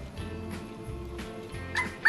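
Background music with a steady low beat. Near the end, a Fingerlings interactive toy monkey starts chirping, with short high squeaks repeating about three times a second.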